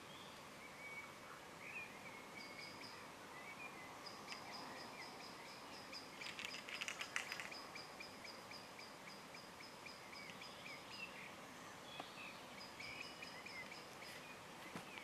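Faint dusk birdsong across the lake: small chirping and warbling calls with a thin high steady note, and a brief rattling about six to seven seconds in.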